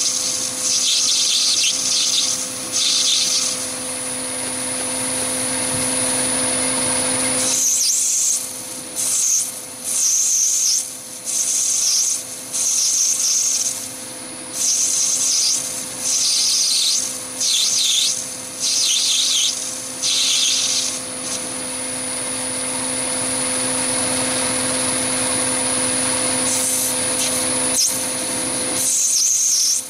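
Chinese mini lathe running with a steady hum and whine while a carbide-insert tool turns a brass bar. The hissing cut comes and goes in short bursts about once a second, stopping for a few seconds twice.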